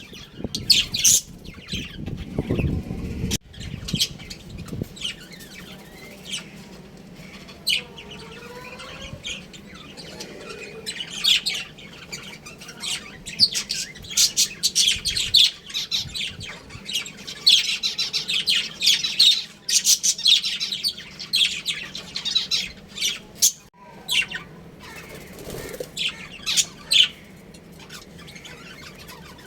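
Budgerigars chirping and squawking in a rapid, busy chatter of short, high calls, densest in the middle. A brief low rumble comes a few seconds in.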